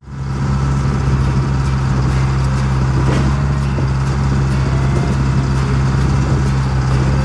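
The two-stroke Detroit Diesel engine of an old Galion road grader running loudly and steadily at a constant speed, a deep even hum with no change in pitch.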